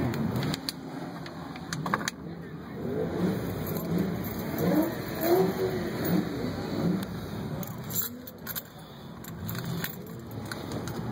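Classic Shelby Mustang V8 engine running, heard from inside the car's cabin, with keys jangling and sharp handling clicks near the microphone throughout.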